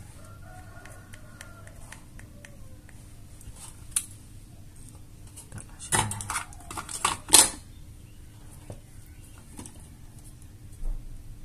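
Clicks and clattering of a small power-supply circuit board and its plastic adapter casing being handled on a workbench. A quick cluster of louder knocks comes about six to seven and a half seconds in, with another knock near the end.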